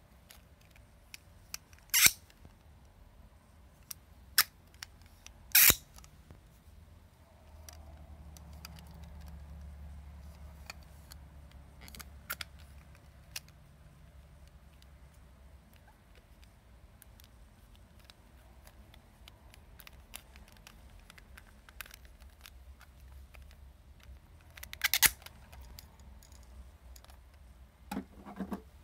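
White plastic Paterson film-developing reel being twisted and taken apart by hand: sharp plastic clicks as the flange halves unlock and snap along the core, with small ticks of handling between them and a short run of clicks near the end.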